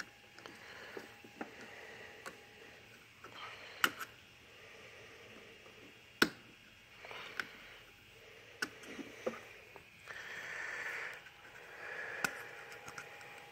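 Faint handling sounds of a plastic oil-bottle spout adapter being put together with a rubbery gasket: scattered sharp clicks and taps of the plastic parts, the loudest about six seconds in, with soft rustling near the end.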